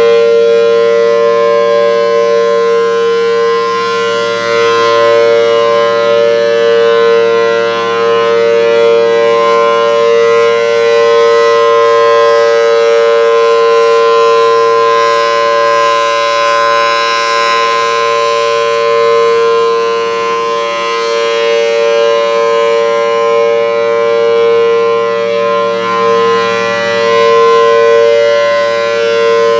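Federal Signal Thunderbolt 1000BTSC outdoor warning siren with a 4/5-port rotor, sounding its Alert signal: a steady, unwavering chord that swells and fades slowly as the rotating head sweeps past.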